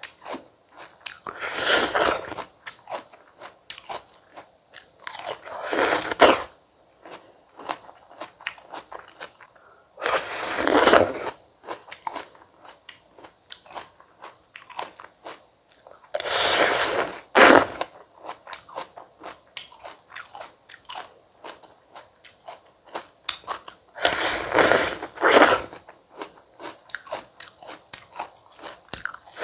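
Bites into fresh stone fruit, five loud ones spaced about four to seven seconds apart, with steady chewing in between.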